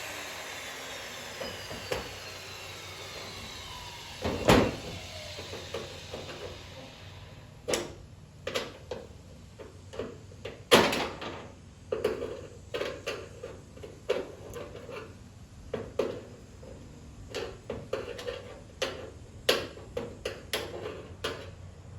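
A power tool winding down with a falling whine, followed by a string of irregular metal knocks and clicks, with a loud knock about four seconds in, as an old CB antenna plug is worked loose from a truck's sheet-metal body.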